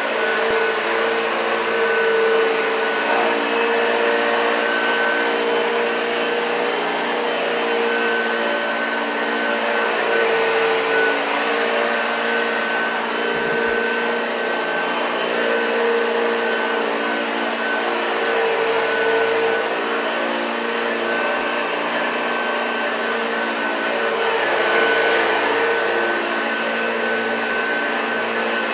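1986 Hoover Junior U1206 upright vacuum cleaner running steadily: an even motor hum with a thin, steady high whine above it.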